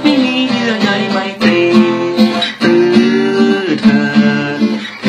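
Acoustic guitar strummed in a steady rhythm, chords ringing between the strokes.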